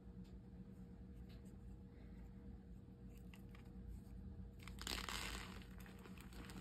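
A block of reformed gym chalk crushed between bare hands: a few light crackles, then a loud crumbling crunch about five seconds in as it breaks apart into powder.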